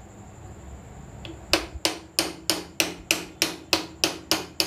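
Hammer striking a sewing machine's steel needle bar to knock it out of its bushing, metal on metal. After about a second and a half of quiet, a steady run of sharp taps at about three a second.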